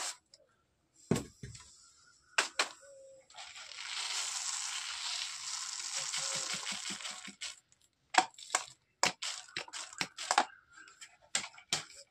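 Small black-powder-coated firework stars poured from a steel bowl into a mesh sieve. After a couple of knocks there is a steady rustling hiss of the pellets for about four seconds, then a run of sharp clicks and crackles as the sieve is worked to separate the large stars from the small.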